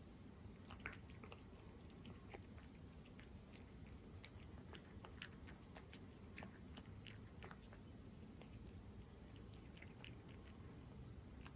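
A cat eating wet food, chicken in jelly: faint, irregular wet clicks of chewing and biting.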